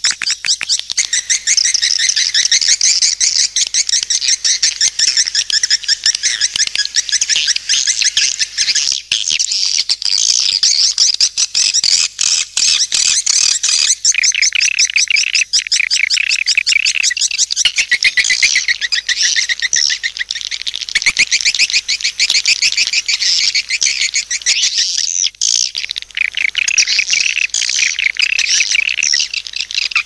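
Swiftlet lure-call recording: a dense, continuous twittering of rapid high chirps, the call sound played to draw swiftlets into nest houses.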